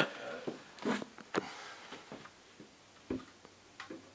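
A loud sharp click, then a few scattered softer knocks and clicks: handling noise as speaker wire is worked at a wooden subwoofer box.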